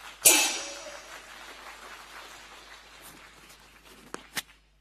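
Tableware clatter: a loud clink with a short ringing tail about a third of a second in, then two sharp clicks near the end, over faint room noise.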